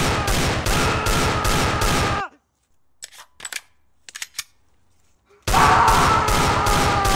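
Gunfire sound effect: two bursts of rapid, evenly spaced pistol shots with a man's sustained yell over them. The first burst stops about two seconds in, and the second starts about five and a half seconds in. Between them there are only a few faint clicks.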